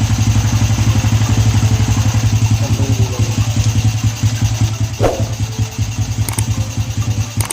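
Honda Wave's single-cylinder four-stroke engine running steadily at idle with a fast, even beat, easing slightly in level about five seconds in, with a brief click at that point.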